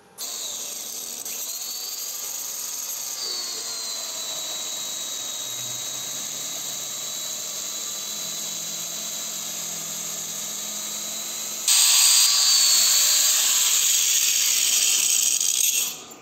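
Angle grinder driving a DIY abrasive belt grinder, running with a steady high whine. About twelve seconds in, the sound jumps louder and rougher for the last few seconds, then drops away.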